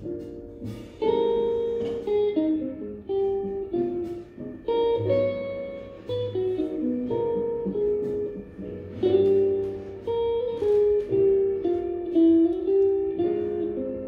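Background music: a plucked guitar playing a melody of single notes and chords.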